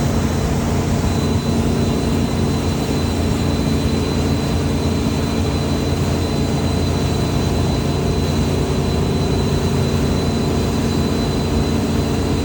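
An engine running at a steady, unchanging speed: a constant drone with a thin high whine over it.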